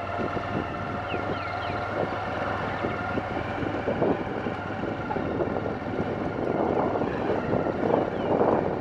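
Motorcycle engine running at a steady pitch while riding, with wind buffeting the microphone and small knocks from the ride. The wind noise grows stronger near the end.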